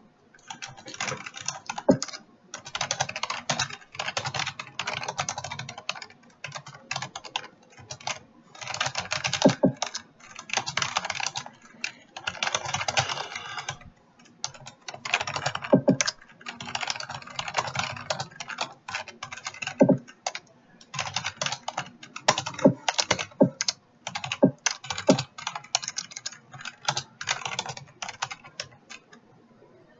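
Computer keyboard typed at speed in quick runs of keystrokes with short pauses between them, a few strokes landing heavier than the rest. The typing stops shortly before the end.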